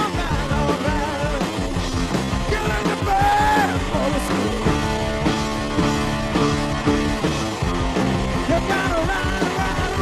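Rock music with electric guitar, a steady beat and a singing voice coming in and out.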